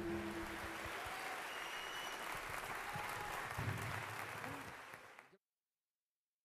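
Audience applauding in an auditorium as the band's last chord dies away. The applause thins out and the sound cuts off abruptly about five seconds in.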